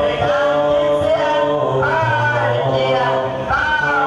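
A voice singing a slow melody with long held, gliding notes, over music with a steady low drone underneath.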